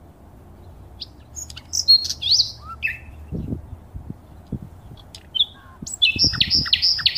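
Small birds chirping and calling, with short rising and falling chirps and a quick run of repeated calls near the end. A few low thuds sound under the calls.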